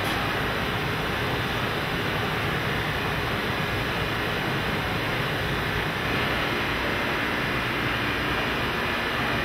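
Steady factory-floor machinery noise: an even, continuous rush with a faint steady hum, from production equipment and air handling.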